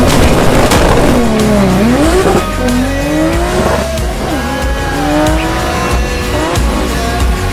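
Nissan Skyline R34's engine accelerating hard through the gears, its pitch climbing and dropping back several times as it shifts up, with music underneath.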